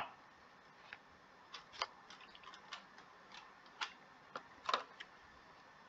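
Faint, irregular light taps and clicks of a stylus on a tablet screen, about a dozen spread unevenly over a few seconds.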